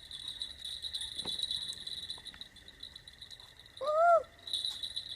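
Crickets chirping in a steady high trill. About four seconds in comes one short call that rises and then falls.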